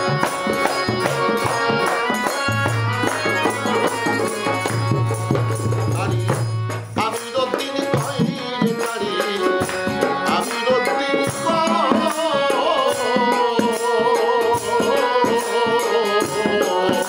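Music: a man singing a South Asian-style song over a steady beat of hand drum and shaken, jingling percussion. A low held note in the accompaniment drops out about seven seconds in, and the wavering sung line is clearest in the second half.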